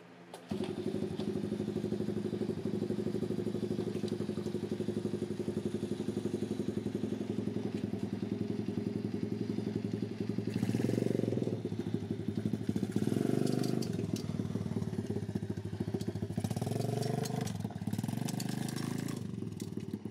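Pit bike trike's small single-cylinder engine running and being revved as it is ridden. It starts abruptly about half a second in and rises in pitch several times from about halfway on. The owner believes the motor is nearly blown.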